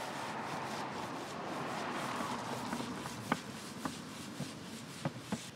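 Fine steel wool wet with mineral spirits rubbing back and forth over a stripped teak-veneer tabletop, a steady rubbing noise that cleans off the last paint-stripper residue. A few light clicks come in the second half.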